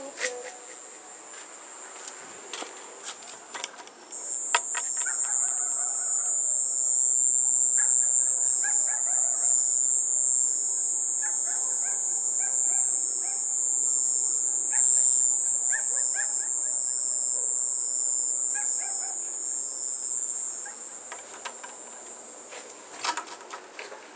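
Phone ringtone playing through the handset speaker: a steady, shrill high tone with a regular pulse just beneath it. It starts abruptly about four seconds in and fades out a few seconds before the end, with a few sharp clicks before and after.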